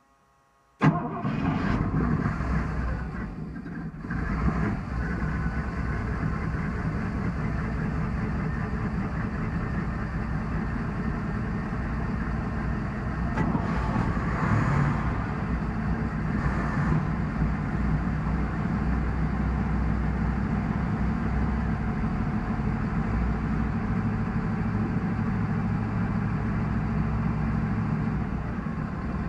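1985 Crusader Marine 270 inboard, a small-block Chevy 350 (5.7 L) V8 with a four-barrel carburettor, heard in its engine compartment. It fires and catches about a second in, dips briefly near four seconds, then settles into a steady idle with a couple of short rises in the middle.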